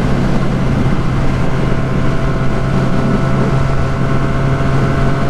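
Benelli 300's parallel-twin engine with a Yoshimura aftermarket exhaust, running at steady high revs as the motorcycle cruises at about 123 km/h. The exhaust note holds an even, unchanging pitch over wind rush on the microphone.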